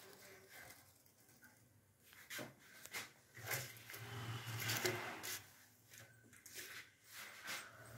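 A few light knocks and clinks of a wire frying strainer and steel plate being handled, with a soft rustle in the middle, as fried potato smileys are set down on a paper-lined plate.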